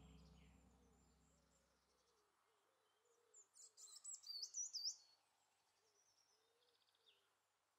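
The low ringing of a gong dies away over the first two seconds. A songbird then sings a short phrase of high, quick whistled notes about three to five seconds in, faint.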